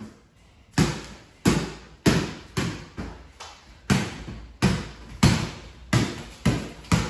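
A ball dribbled by hand on a bare concrete floor: about ten bounces at roughly two a second, starting about a second in, with a short break near the middle.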